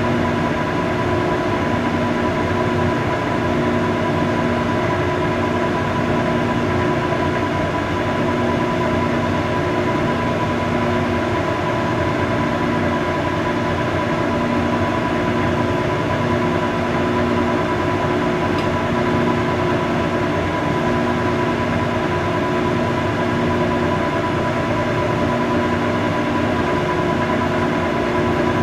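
Monarch metal lathe running steadily with the spindle turning and no cut being taken: a steady machine hum with a high whine, and a low tone that pulses on and off every second or two.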